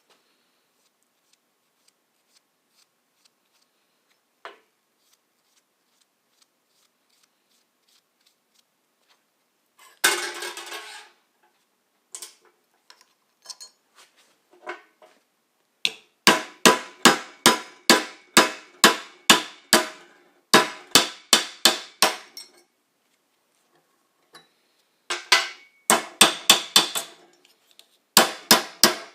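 Hammer blows on metal: after a mostly quiet start and a clatter about a third of the way in, bursts of rapid, ringing strikes come at about three a second in the second half.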